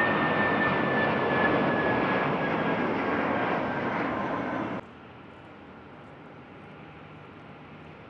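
Jet airliner engines running loud, with a high whine that slowly falls in pitch. The sound cuts off abruptly about five seconds in, leaving a much quieter steady background hum.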